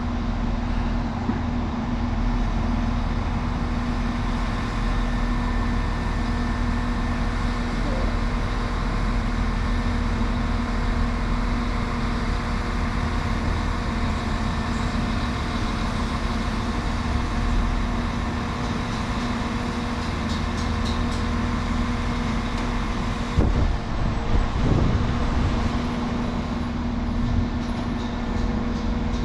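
Northern Class 195 diesel multiple unit's underfloor diesel engines running steadily: a constant hum over a low rumble, holding one note throughout. A few brief knocks come near the end.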